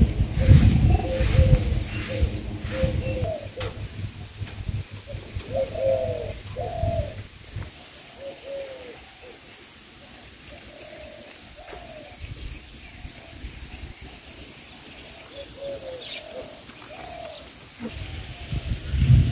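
Doves cooing over and over in short low calls. Wind rumbles on the microphone in the first few seconds and again near the end.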